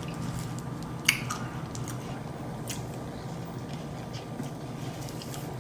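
Close-up mouth sounds of someone chewing food, with a few short wet smacks and clicks over a steady low hum.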